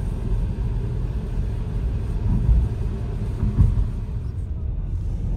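Road noise inside a moving car's cabin: a steady low rumble of tyres and engine, with two brief louder thumps a little past the middle.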